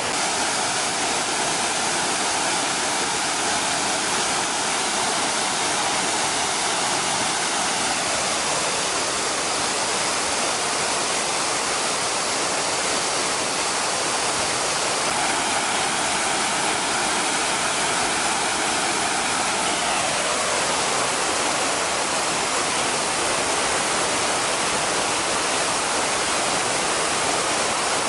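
Waterfall: water pouring and splashing in a steady, dense rush. Its tone shifts slightly a couple of times.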